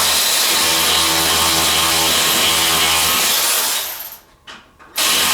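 Handheld power tool running steadily on the engine's motor-mount bolts, winding down and stopping about four seconds in, then starting again about a second later.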